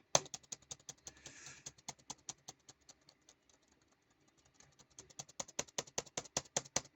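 Typing on a computer keyboard: a fast run of keystroke clicks that thins out and goes faint for a couple of seconds in the middle, then picks up again, quicker and louder.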